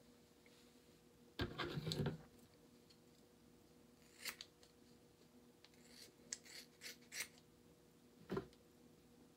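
Scissors cutting through thick dreadlocks: a longer, loudest stretch of cutting noise about a second and a half in, then a handful of short, sharp snips spread through the rest, several of them close together about six to seven seconds in.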